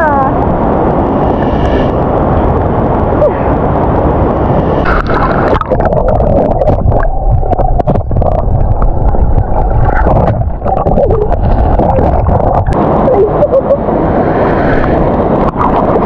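Rushing stream water and splashing at the surface. From about five seconds in the sound turns muffled, with gurgling and bubbling heard under water, and it comes back up to open air near the end.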